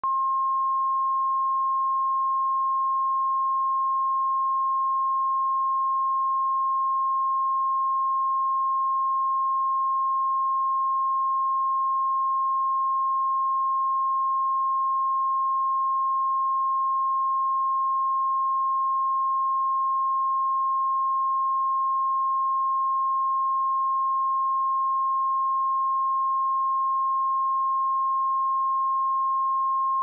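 A 1067 Hz sine-wave test tone: one pure, steady, unbroken tone at constant level, used for checking speakers, headphones or a stereo system.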